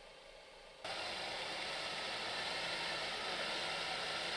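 A SEAT car running in an anechoic test chamber: a steady rushing hiss with a faint low hum, starting abruptly about a second in, with no echo.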